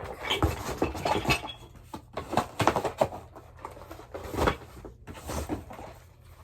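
Handling noise as school books and plastic math pieces are packed back into a box: irregular knocks, clatter and rustling.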